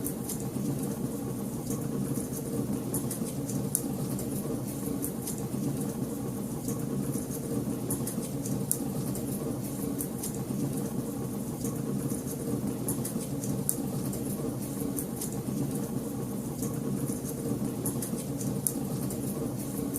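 Wood fire in a fireplace crackling, with frequent small sharp pops and snaps scattered irregularly over a steady low rumble of burning.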